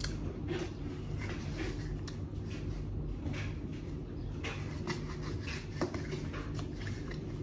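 Eating sounds close to the microphone: chewing, with irregular small crunches and clicks as food is handled in a bowl.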